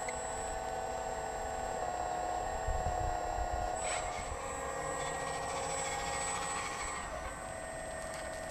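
Hydraulic system of a Liebherr 946 RC model excavator whining steadily at a high pitch while the boom and bucket dig, its tone shifting slightly as the load changes. Wind rumbles on the microphone, and there is a short tick about four seconds in.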